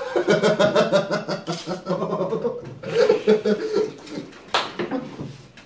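Two men laughing together: a long laugh, then a second shorter one about three seconds in, dying away toward the end.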